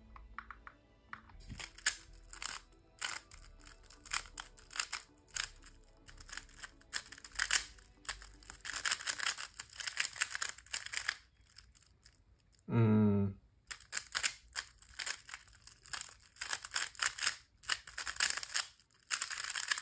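Fast clicking and clacking of a Moyu GTS M magnetic speed cube being turned during a timed speedsolve, coming in quick flurries of turns with short pauses. About thirteen seconds in, the turning stops for a short, loud pitched hum.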